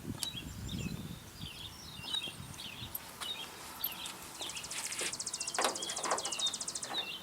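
Birds chirping and singing, with a fast high buzzing trill for a couple of seconds in the second half and a few sharp clicks near the end.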